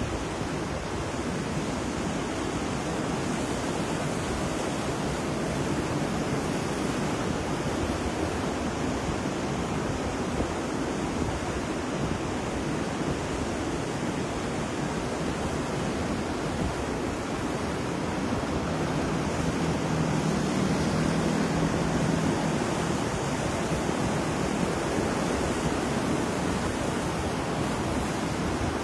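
Steady rushing noise of pouring rain mixed with ocean waves, swelling slightly about twenty seconds in.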